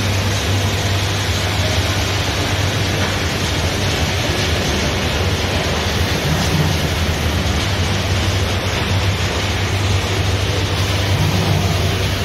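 Steady running noise of woodworking machinery: a constant low hum under a broad hiss, unchanging throughout.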